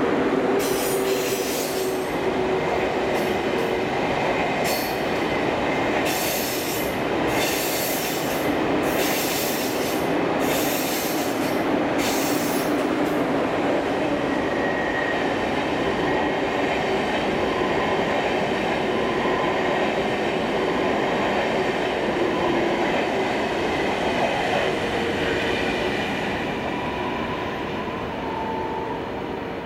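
ICE 2 high-speed train moving slowly through the station, its wheels squealing and clattering on the rails. The first half holds a run of short high hissing bursts, and the noise slowly fades near the end.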